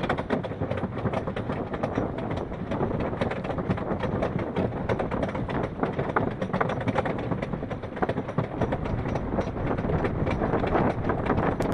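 Mighty Canadian Minebuster wooden roller coaster train climbing the chain lift hill: a rapid, steady clacking of the anti-rollback dogs over the ratchet strip, with the lift chain rattling. Near the end, wind noise rises as the train crests.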